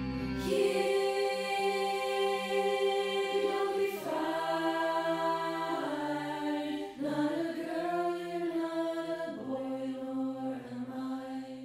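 End-screen music: a slow song of long, layered sung notes, each held for a second or two before shifting to the next pitch.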